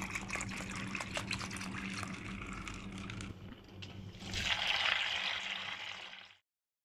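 Water pouring into a plastic bowl of soaking chana dal, splashing among the split chickpeas. About four seconds in, a louder stream from a sink tap runs into the bowl as the dal is rinsed, then the sound cuts off suddenly near the end.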